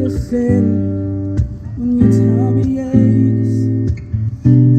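Background song: a strummed acoustic guitar with a sung melody, a slow love ballad.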